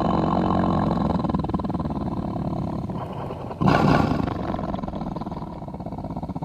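Deep, rough dinosaur roar, a sound-designed creature call offered as a Kasai rex voice, tailing off, then a second, louder roar breaking in about three and a half seconds in and slowly fading.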